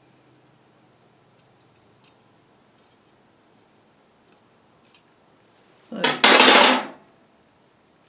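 Metal hand tools clattering on a workbench: one loud rattle about six seconds in, lasting about a second. Before it there are only a few faint small ticks.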